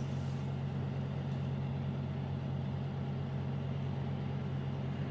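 A steady low mechanical hum with an even rushing noise over it, unchanging throughout.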